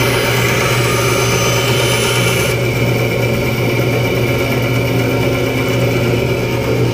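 Davis & Wells bandsaw running with a steady low motor hum while its blade cuts through dark hardwood fed against the fence. The hiss of the cut is strongest during the first two and a half seconds or so.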